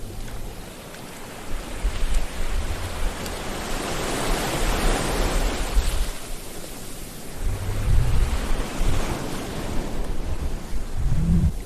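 Sea waves breaking and washing in: a broad rush of surf that swells to a peak about four or five seconds in and again around eight seconds, with low rumbling surges underneath.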